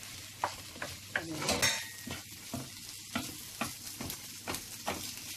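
Noodles being stir-fried in a pan: a utensil taps and scrapes the pan about twice a second over a light sizzle, with one louder metallic scrape about a second and a half in.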